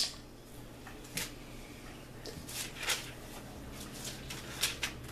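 Steady low hum on a handheld microphone line, with a few short soft breath noises close to the microphone.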